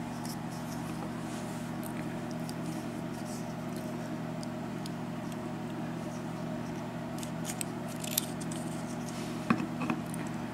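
Faint scattered metallic clicks and taps of a mortise lock cylinder being taken apart by hand, a few more of them near the end, over a steady low hum.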